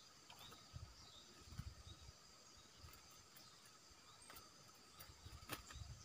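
Several faint short chirps of a bulbul, each dipping slightly in pitch, over a steady insect drone, with a few sharp clicks near the end and brief low rumbles.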